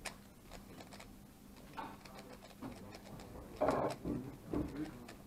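MoFang Thunderclap 3x3 speedcube being turned rapidly in one hand during a one-handed solve, a fast run of light plastic clicks, with a few louder muffled knocks around the middle.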